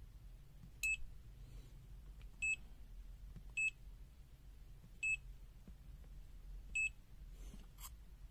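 Digital multimeter's buzzer giving five short, high-pitched electronic beeps at uneven intervals, about a second or more apart.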